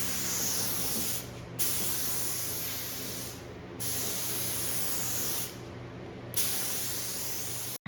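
Air-driven paint spray gun hissing in long spraying passes, cut back three times for a moment as the trigger is let off.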